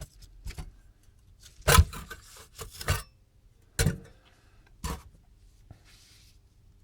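Handling noise from opening up an electronics unit: four sharp clicks or knocks about a second apart, with rubbing and scraping between them.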